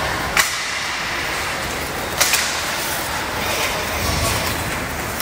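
Ice hockey play in a rink: a steady hiss of skates on ice and rink noise, with two sharp clacks of hockey sticks, one just under half a second in and one about two seconds in.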